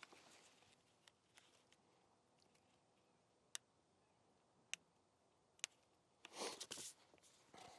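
Near silence: quiet room tone with a few faint, sharp clicks and a short rustle about six and a half seconds in.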